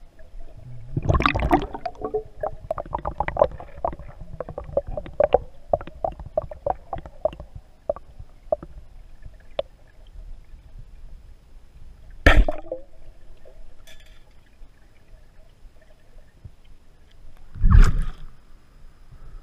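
Underwater crackling and bubbling clicks, then a single sharp crack about twelve seconds in as the band-powered Bluetec Raptor 115 speargun fires its shaft. A louder, longer burst of noise follows near the end.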